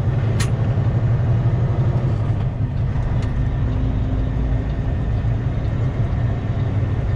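Semi truck's diesel engine and road noise droning steadily inside the cab while driving, with one sharp click about half a second in.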